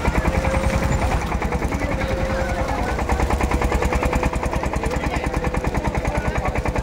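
An engine running steadily with a fast, even thumping pulse that does not change.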